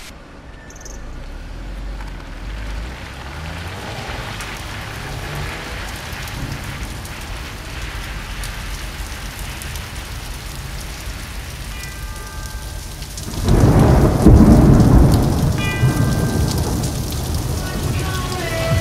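Steady rain falling. About two thirds of the way in a sudden loud rumble breaks in and fades over a few seconds.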